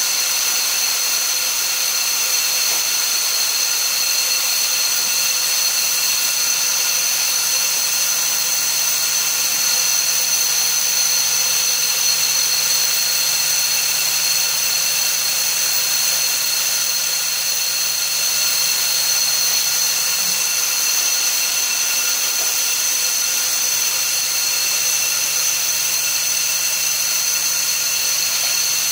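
Steady industrial machinery noise: a constant hiss with several high, steady whining tones. A low hum joins about five seconds in.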